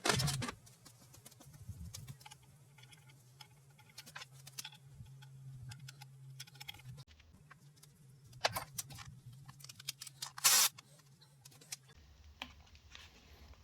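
Hand tools clicking and tapping against engine parts during disassembly: scattered light metal clicks, with a louder short clatter about ten and a half seconds in, over a faint steady low hum.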